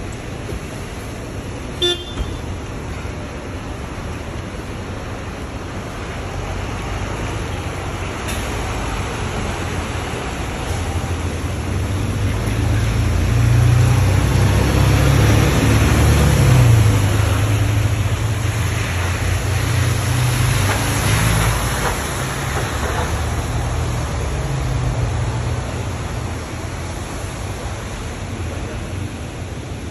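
A Mercedes-Benz Citaro single-deck diesel city bus pulling out and driving past on the wet road. Its engine builds up, peaks and fades over about fifteen seconds, with tyre hiss on the wet surface. There is a short toot about two seconds in.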